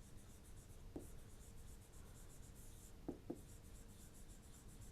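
Faint scratchy writing strokes, repeated in short runs, with a few soft taps.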